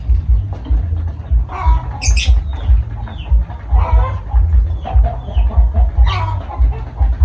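Birds calling in short separate calls, about four or five times, over background music with a low pulsing beat.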